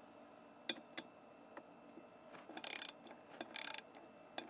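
3/8-inch-drive click-type torque wrench working a wheel-rim bolt: a few separate sharp clicks, then two short runs of rapid ratchet clicking as the handle swings back, and more clicks near the end.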